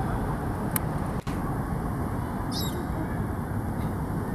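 Steady rumbling outdoor background noise. It drops out for an instant just after a second in, and a short high wavering chirp sounds about two and a half seconds in.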